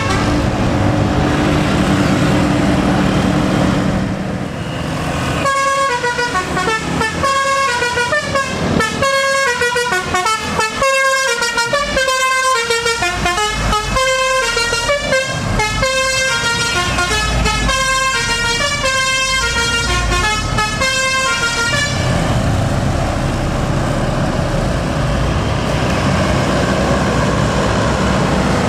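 Tour bus telolet basuri horn playing a melody: a run of loud pitched notes stepping up and down, about half a second each, lasting some sixteen seconds from about five seconds in. A vehicle's running noise lies under it before the tune starts and after it stops.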